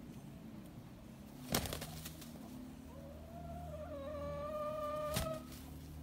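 A rooster crowing once, a drawn-out call that rises and then holds for about two and a half seconds from halfway in. Two sharp thumps stand out, the louder one about a second and a half in and another near the end of the crow.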